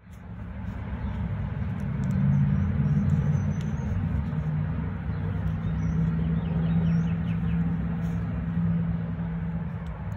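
2004 Toyota Prius rear wheel hub bearing turning with a low, steady rumble and a droning hum. The bearing is rusty, stiff and grinding.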